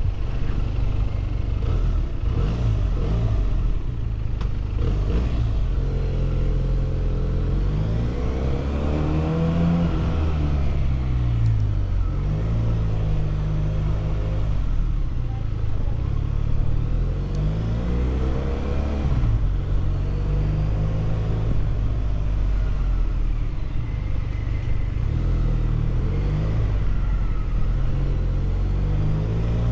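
Benelli 302S parallel-twin motorcycle engine heard through its exhaust while riding, its pitch climbing and dropping several times as the rider accelerates, changes gear and rolls off, with a steady low rumble in between.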